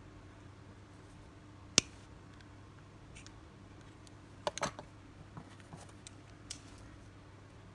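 Small sharp clicks of steel pliers and a fishing hook being handled: one loud click about two seconds in, a quick cluster of clicks around four and a half seconds, then a few fainter ticks.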